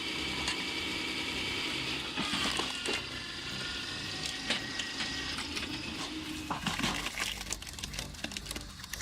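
Wood cracking and splintering as a hydraulic firewood splitter splits logs, over a steady high whine. The cracks come thick and fast over the last two seconds or so.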